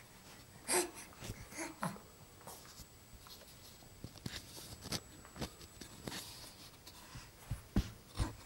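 A baby's breathy little grunts and soft pats of her hand on a fabric couch cushion, a few scattered sounds with a couple of sharper thumps near the end.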